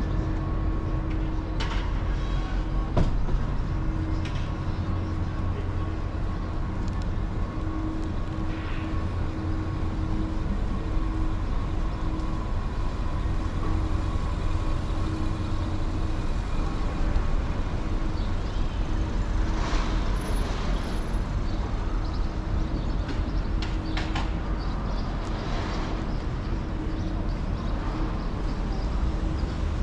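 Downtown street ambience: a steady low traffic rumble with a constant engine-like hum running through it. A couple of sharp clicks come in the first few seconds, and two hissing swells pass about twenty and twenty-five seconds in.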